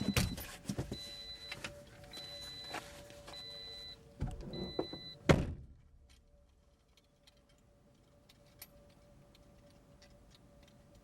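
A car's door-open warning chime beeps steadily, about once a second, over knocks and rumbling. About five seconds in a car door thumps shut, cutting off the outside noise and the chime and leaving a quiet cabin hum.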